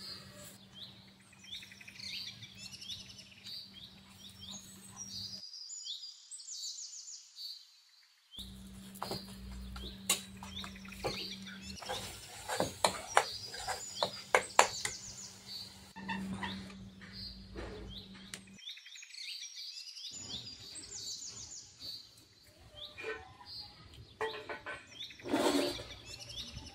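Small birds chirping over and over in the background. Through the middle stretch there is a run of sharp clicks and scrapes from a ladle stirring thick masala in a metal kadhai.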